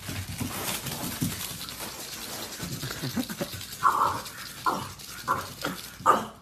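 A dog panting quickly and rhythmically, with five short, louder sounds in the second half; the last one, near the end, is the loudest.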